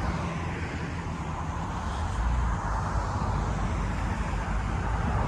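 Steady outdoor road-traffic noise with a gusty rumble of wind on the microphone, rising a little about two seconds in.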